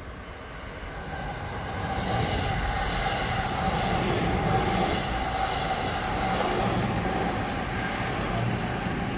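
JR West electric train passing through the station without stopping: the rumble of its wheels on the rails builds over the first two seconds and stays loud, with a steady whine running through it.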